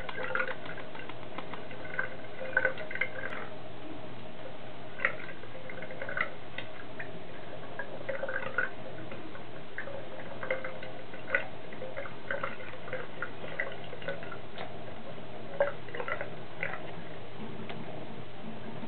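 Thin stream of water running from a bathtub faucet, with irregular wet ticks and small splashes as a Bengal cat laps at the stream with its tongue.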